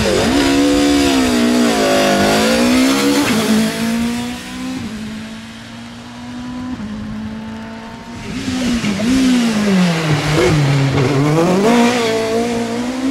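Race car engines pulling hard on a wet hillclimb road, the revs climbing and dropping through several gear changes. The sound eases off briefly, then high revs build again a few seconds later, dipping and climbing once more near the end.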